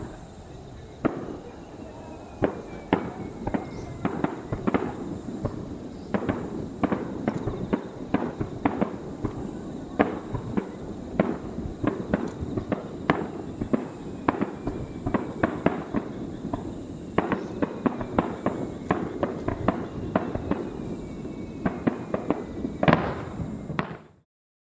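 Fireworks display: a rapid barrage of aerial firework bursts, sharp bangs one after another over a continuous rumble, growing denser toward a loudest burst near the end. The sound then cuts off suddenly.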